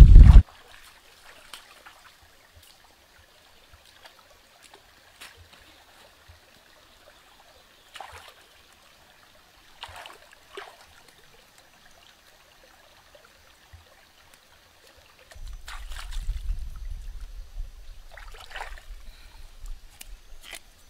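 Shallow stream water trickling, with scattered small splashes as water spinach is rinsed in it by hand. A loud low rumble cuts off just after the start, and a quieter low rumble comes in about three-quarters of the way through.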